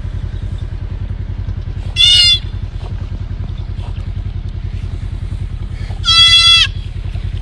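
A fawn, held in a dog's mouth, gives two loud, high-pitched distress bleats: a short one about two seconds in and a longer one about six seconds in. A steady low rumble runs underneath.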